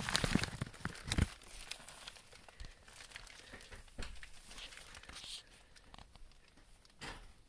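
Rustling and crinkling handling noise with scattered clicks and knocks, densest in the first second or so.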